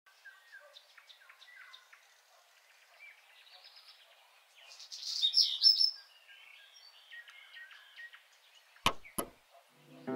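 Birds chirping and singing, with a louder run of song about halfway through. Near the end come two sharp clicks, a Sony portable CD player's lid being snapped shut.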